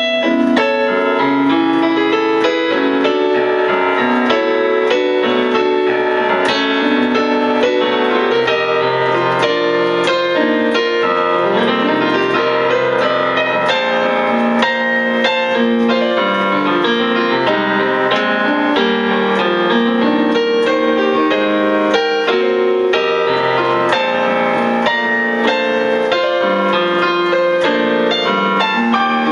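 Solo Casio CDP-100 digital piano played in a jazz style, chords under a melody line, without a pause.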